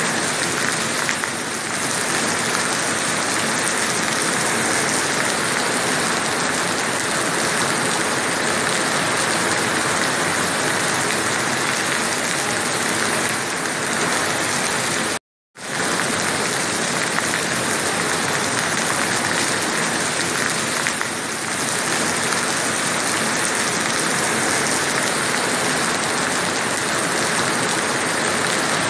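Heavy rain pouring steadily, a dense, even hiss. The sound cuts out completely for a split second about halfway through.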